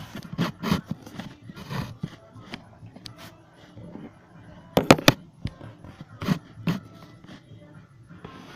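Plastic clicks and knocks from a Nerf blaster being handled, its top latch and parts worked by hand, with a quick run of three sharp clicks about five seconds in.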